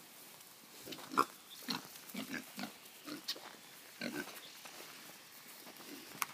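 Short, irregular low grunting calls from an animal, with a few sharper higher chirps and clicks among them; the loudest is about a second in.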